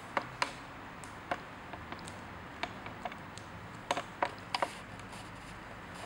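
A parrot moving about on a hard wooden surface close to the microphone: irregular sharp clicks and taps, some in quick pairs, the loudest cluster a little after the middle.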